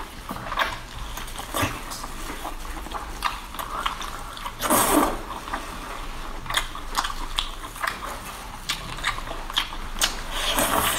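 Close-miked wet eating sounds of whole octopus in chili oil: sticky smacking and chewing with many short clicks. Two longer, louder wet sucking sounds come about halfway through and again near the end.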